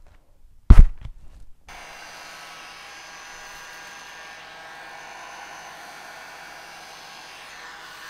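A single loud thump just under a second in, then from about two seconds in a heat gun's fan blowing steadily, a whirring hiss with several fixed tones in it, heating the foam so it sticks without glue.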